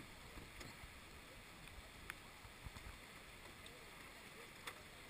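Near silence: faint canoe-paddling and river noise, a low even hiss with two light knocks, about two seconds in and near the end.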